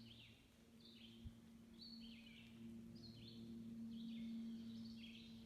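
Faint forest birdsong: a songbird repeating short, falling, high phrases about once a second, over a faint steady low hum.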